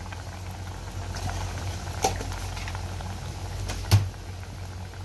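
Tomato pizza sauce bubbling as it simmers in a pot, with two sharp knocks, one about two seconds in and a louder one just before four seconds.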